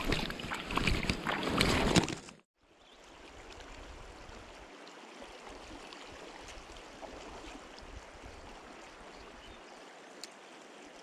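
Hands splashing in shallow river water for about two seconds, then, after an abrupt cut, the steady rush of the flowing river.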